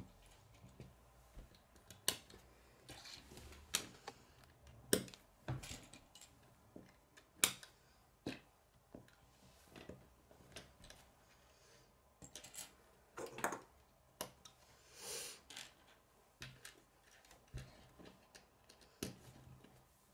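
K'nex plastic rods and connectors clicking as they are snapped together and set down on a wooden tabletop: scattered sharp clicks every second or so, with a short rustle about three-quarters of the way through.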